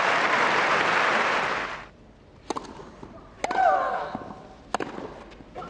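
Crowd applause that stops about two seconds in, then a tennis rally: sharp racket-on-ball strikes roughly a second apart, one of them with a player's short falling grunt.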